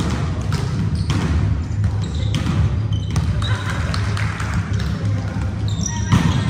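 Volleyballs being struck and bouncing on a hardwood gym floor, many irregular thuds and smacks, with short sneaker squeaks and a steady low hum underneath.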